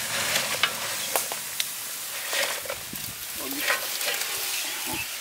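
Fried swordfish pieces sliding off a steel tray into a large iron karahi of hot spiced curry liquid: a steady sizzling hiss with scattered sharp clicks and knocks as the pieces drop in and are moved about.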